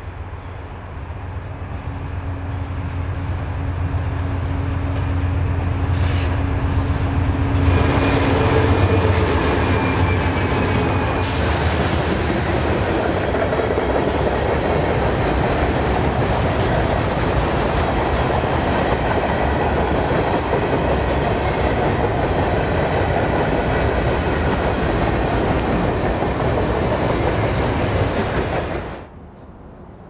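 GE C40-8 diesel freight locomotives working under power, their V16 engines' low rumble growing louder as they approach over the first several seconds. Then the train's cars roll past with a steady rumble of wheels on rail, which cuts off suddenly near the end.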